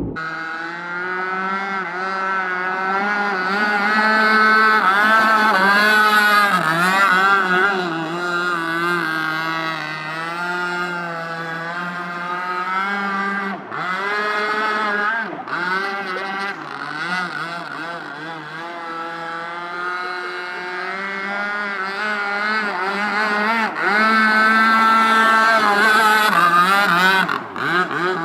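Large gasoline-powered RC boat's small engine running at speed on the water, its pitch rising and falling with throttle and passes, with a few brief dips in the middle.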